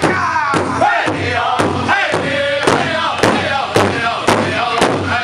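Powwow drum group: several singers strike one large hide-covered powwow drum together in a steady beat, about two strokes a second, while singing a powwow song in chorus.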